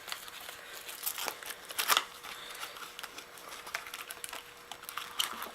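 Rustling, scuffing and scattered clicks as a foam handlebar pad is handled and pressed onto a three-wheeler's handlebar, with a louder scuff about two seconds in.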